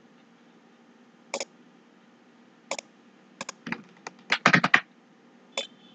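Computer keyboard keystrokes: a couple of single taps, then a quick irregular run of keys about three and a half to five seconds in, and one more tap near the end.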